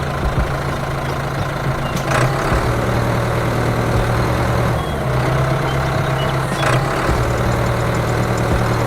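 Mini tractor's engine running steadily with a low hum that shifts slightly in pitch, broken by a sharp click about two seconds in and another near the seventh second.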